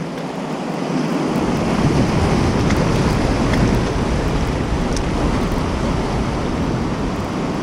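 Rough sea surging and washing through the gaps between concrete tetrapod breakwater blocks, swelling about a second in, with wind rumbling on the microphone.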